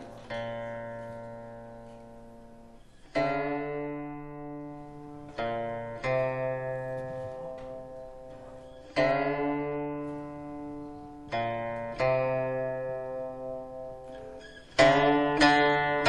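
Slow background music on a plucked string instrument: notes and chords plucked every few seconds, each left to ring and fade.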